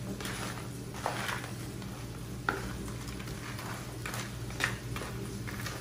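Wooden spatula stirring blue swimmer crabs as they sauté in a frying pan. The shells scrape and clatter against the pan every second or so, over a steady low hum.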